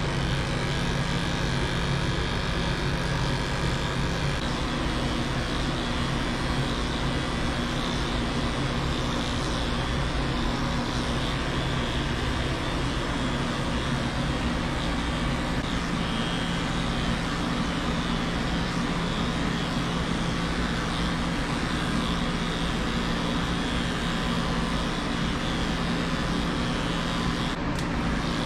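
Cordless electric dog clipper running with a steady, unbroken hum as it shaves a small dog's coat.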